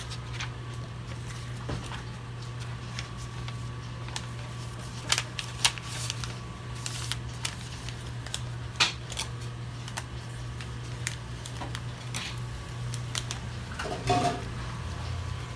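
A crepe being handled and slipped into a paper cone sleeve: scattered light clicks and brief paper rustles, with a short cluster of handling noise near the end. A steady low hum runs underneath.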